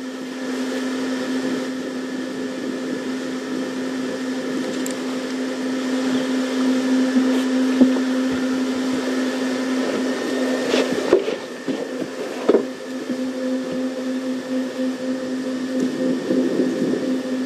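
Safari vehicle's engine idling as a steady hum, with a few sharp snaps about halfway through and twice more a few seconds later, typical of an elephant breaking branches while feeding close by.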